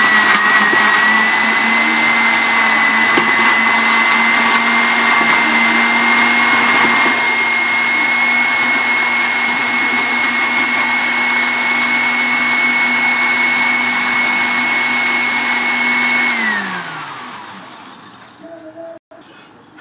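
Electric kitchen blender running at full speed, puréeing bilimbi fruit with a little water: a loud, steady high whine over a motor hum. About sixteen seconds in it is switched off and the motor winds down, its pitch falling away.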